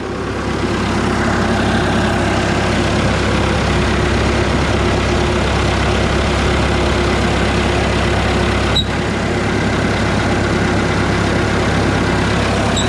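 Large wood chipper's engine running steadily at low revs, not revved up. A brief click comes about nine seconds in.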